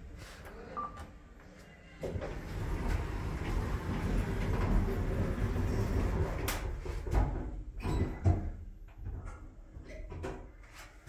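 Inside the cab of a 2004 Kone MonoSpace traction elevator: a short beep about a second in as a floor button is pressed. Then, from about two seconds in, the sliding doors close and the car runs with a low rumble and rattling, broken by a few sharp knocks; the loudest knock comes about eight seconds in.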